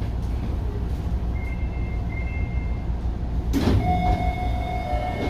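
Kita-Osaka Kyuko 8000 series train standing at a platform with a steady low hum. About three and a half seconds in there is a brief hiss, and then a steady tone begins.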